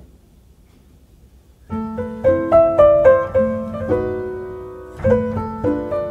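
A single light tap, then solo piano background music begins a little under two seconds in, a melody of struck notes ringing out.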